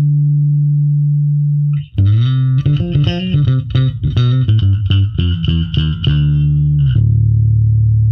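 Shikagawa Dorado Bass SC5 electric bass, with Delano pickups and a Sonar3 preamp, played solo: a held low note, then from about two seconds in a quick run of short plucked notes, settling on a long sustained low note near the end.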